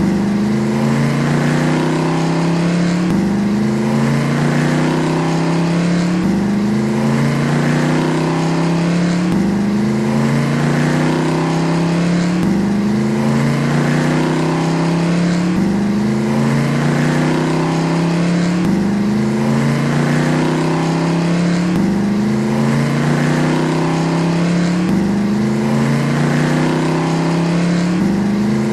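Car engine accelerating, its pitch climbing and then dropping back sharply, over and over about every three seconds.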